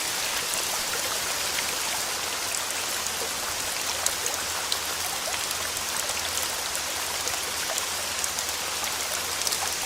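Steady rainfall: an even hiss with many scattered sharp drop ticks.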